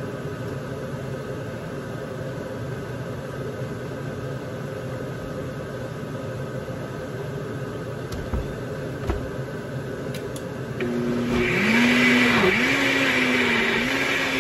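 A steady background hum with a couple of soft knocks, then about 11 seconds in a Nutribullet blender motor starts and runs loudly to the end. Its pitch dips and recovers twice as it grinds a load of green herbs and tomatillos for a sauce.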